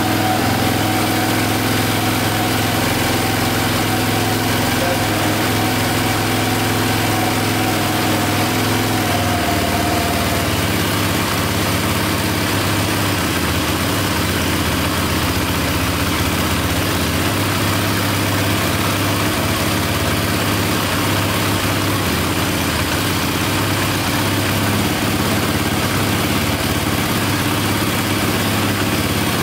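KTM EXC dirt bike's single-cylinder four-stroke engine idling steadily, its note shifting slightly about nine seconds in.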